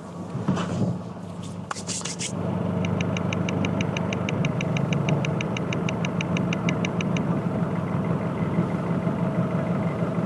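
Nissan YD25 four-cylinder common-rail diesel idling, heard through a listening sensor on the fourth cylinder's injector, with a fast, even ticking of about eight ticks a second. The ticking is the injector needle clicking, and it stops about seven seconds in as that injector's control is cut. The first two seconds hold a few clicks of the sensor being handled.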